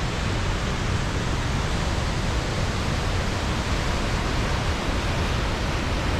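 Reekie Linn, a two-stage waterfall on the River Isla in spate after heavy storm rain, giving a steady, even roar of falling water.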